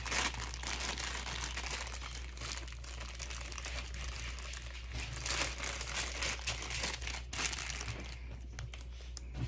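Plastic packaging crinkling and rustling as it is handled and unwrapped, with a few louder crackles along the way.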